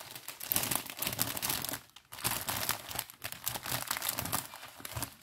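Plastic packaging crinkling and rustling as it is handled: the small zip-lock sachets of round diamond-painting drills, with a short lull about two seconds in.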